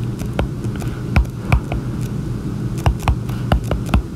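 Stylus tapping and ticking on an iPad's glass screen during handwriting: irregular sharp clicks, about a dozen, over a steady low hum.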